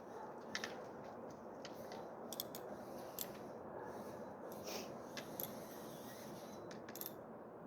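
Scattered small, sharp clicks and taps of hand tools on motorcycle parts, at irregular intervals, over a steady background hiss.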